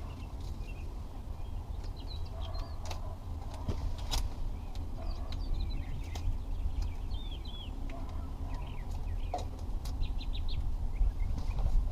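Small birds chirping in short, rapid calls, over a steady low rumble, with a few sharp clicks scattered through.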